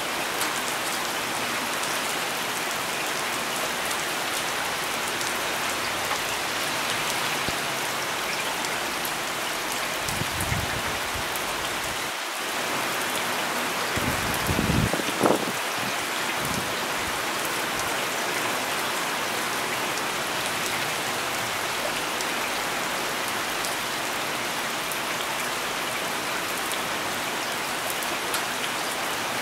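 Steady rain falling, an even hiss of drops. A couple of brief low rumbles come about halfway through.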